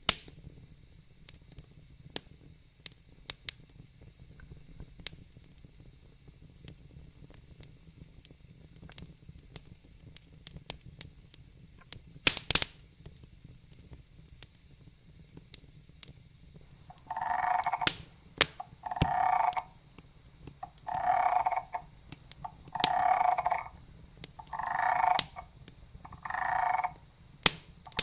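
Wood campfire crackling with scattered sharp pops, one louder pop about twelve seconds in. From about seventeen seconds in, a call repeats roughly every two seconds over the crackle, each call lasting under a second.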